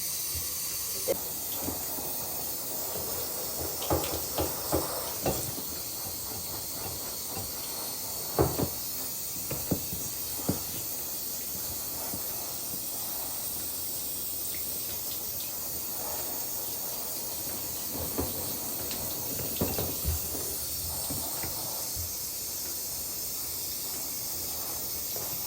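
Steady hiss of warm water running from a tap or sprayer into a sink while a hen is bathed, with scattered knocks and splashes from the handling.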